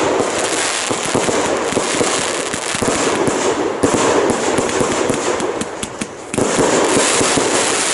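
Fireworks display with many shells bursting close together and dense, continuous crackling and popping; it eases briefly about six seconds in, then picks up again.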